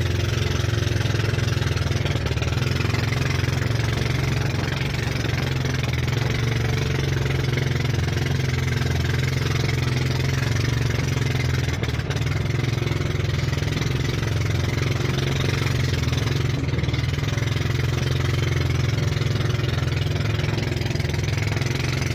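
Direct-drive petrol engine of a small outrigger racing boat running steadily and loud while the boat is under way, a constant low drone with no change in speed.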